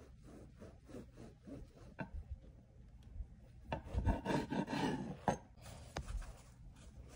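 Serrated bread knife sawing through a slab of soft slider rolls on a wooden cutting board: repeated rasping back-and-forth strokes that grow louder about four seconds in.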